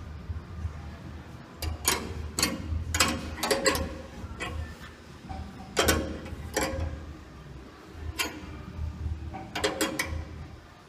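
Spanner clicking and rattling in short bursts of sharp clicks as the nuts on the motor's threaded tension rod are turned, tensioning the sawmill's drive belts.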